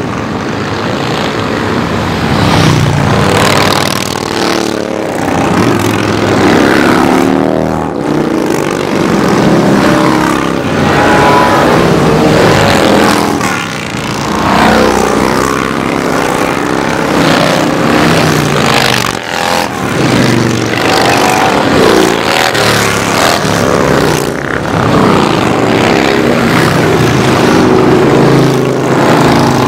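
Many cruiser and touring motorcycles riding past one after another in a continuous loud stream of engine sound, each bike's engine note rising and falling in pitch as it goes by.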